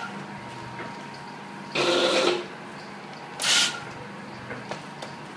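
Automatic granule packing machine, a vertical form-fill-seal bagger, running with a steady hum. Two short, loud noisy bursts come about two seconds in and again about three and a half seconds in as it works through its bag-forming and sealing cycle.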